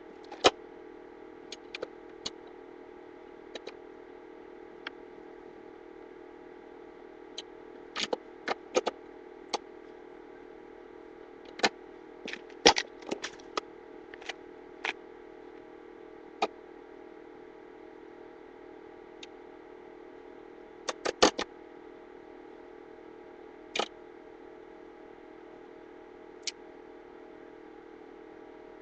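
Hard metal clicks and clinks at irregular intervals, some in quick clusters, over a steady hum: rack hardware and tools being handled during a bike rack installation.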